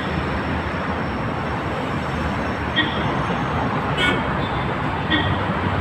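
Steady street traffic noise of cars passing on a busy seaside road, with a few brief high-pitched chirps scattered through it.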